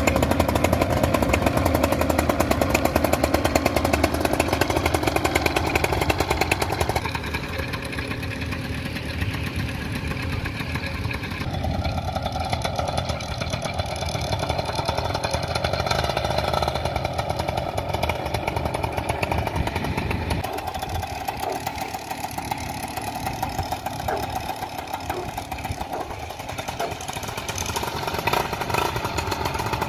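Paramotor's two-stroke engine running at low throttle with a steady buzz, its tone shifting a couple of times.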